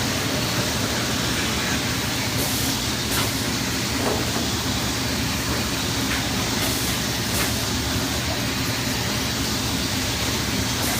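Automatic shrink-wrap packaging machine running steadily: a constant motor hum under an even blower hiss, with a few faint clicks from its mechanism.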